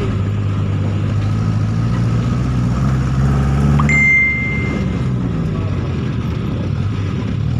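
Vehicle engine running steadily, heard from inside the moving vehicle; it climbs in pitch and swells about three seconds in, then eases back. Just before the four-second mark a single short, high beep sounds.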